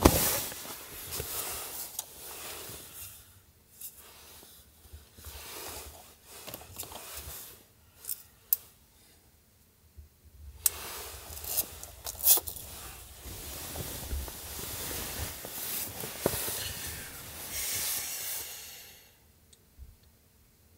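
Duvet and bedding rustling in irregular bursts as a person shifts and settles under the covers, with a few sharp clicks in between. It stops shortly before the end.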